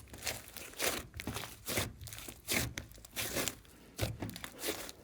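Glossy slime with mixed-in bits being squeezed and kneaded by hand, giving repeated crackly, crunchy squishes, a little more than one a second.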